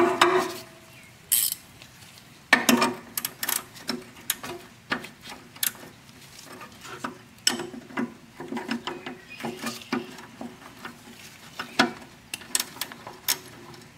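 Ratcheting combination wrench clicking in short, irregular runs as it turns a brake-line fitting nut, with metal clinks of the spanners against the fitting.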